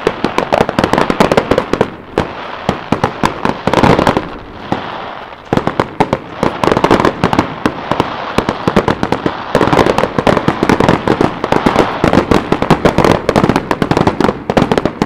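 Fireworks display going off: a dense run of rapid bangs and crackles, easing briefly about four seconds in, then thickening again.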